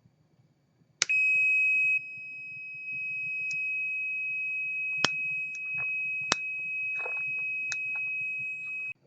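Continuity tester giving one steady high beep from about a second in until near the end, louder for its first second, with a few sharp clicks as the radio's on/off switch is worked. The beep keeps sounding with the switch turned off: the old volume-control switch's contacts stay closed and need more cleaning.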